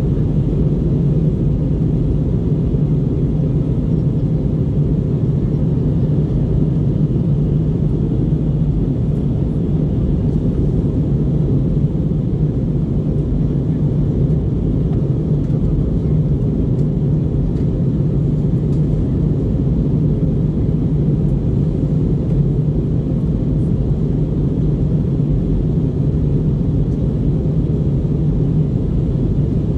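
Steady in-flight cabin noise of an Airbus A321neo with CFM LEAP-1A engines: a constant low rumble of airflow and engines, heard from a window seat.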